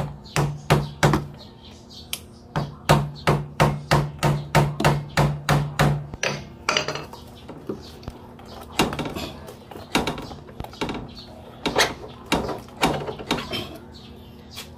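Hammer blows on a scooter's front fork (shock) parts during disassembly. Three blows, then a fast run of about fourteen at roughly four a second, each with a short low ring, then a few scattered knocks.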